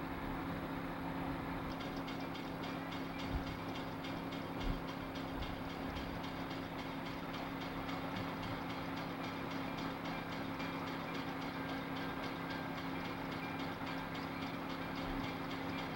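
Chesapeake and Ohio 2765, a 2-8-4 Berkshire steam locomotive, approaching under steam. A steady running sound carries a low hum throughout, and a fast, even beat comes in about two seconds in.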